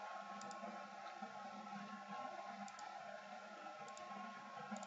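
A few faint computer mouse clicks, each a quick double tick, over a steady low room hum.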